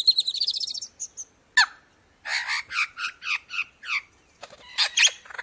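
Lyrebird singing a varied run of mimicked calls: a fast rising trill, a few short chips and a sharp downward whistle, then about six quick notes and two sharp whip-like sweeps near the end.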